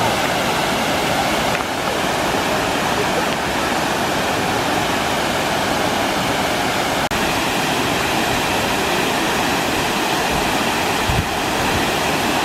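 Steady rush of splashing water from a reverse waterfall fountain, where jets shoot water up and over instead of down.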